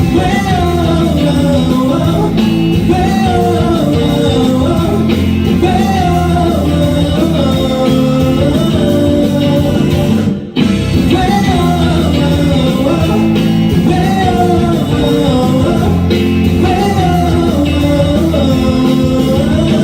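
Live rock band playing, with a melodic lead line over bass and drums. The band cuts out for a split second about ten seconds in, then comes back in.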